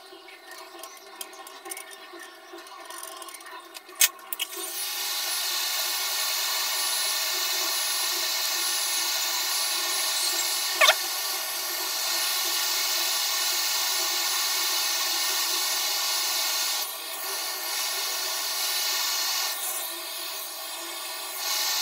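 Hot-air rework station blowing onto a laptop motherboard to replace the filter inductors by the charging circuit: a steady rush of air with a fan's whine that starts about four and a half seconds in, after a click. A sharp click about eleven seconds in.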